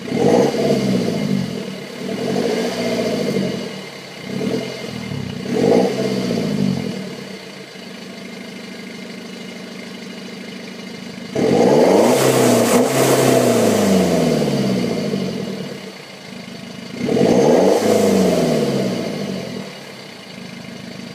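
Diesel engine of a BMW F30 3 Series revving through its exhaust several times, settling back to idle in between. There are short blips early on, then two longer revs in the second half that climb and fall away.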